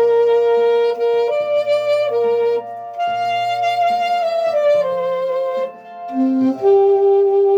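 Saxophone playing the slow melody of a gospel song in held notes that step up and down, with sustained lower accompaniment notes beneath; the line pauses briefly about six seconds in, then resumes.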